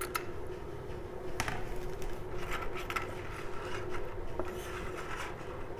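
Wooden stirring stick working through a slurry of silver chloride and iron wires in a plastic bucket, making soft scrapes and light taps against the bucket and wires, with a faint steady hum underneath.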